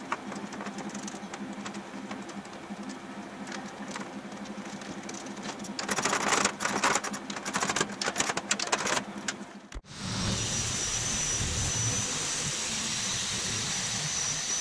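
Aluminum sheet panel rattling and clicking as it is fitted against a steel frame and fastened with clecos, over a steady hum; the clattering is densest from about six to nine seconds. About ten seconds in it cuts to a corded electric sheet-metal power shear cutting aluminum sheet: a louder steady shearing noise with a high whine.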